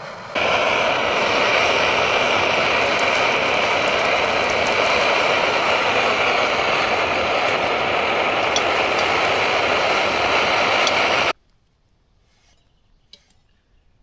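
Primus camping gas stove burner running at full flame: a loud, steady roaring hiss that stops abruptly about eleven seconds in.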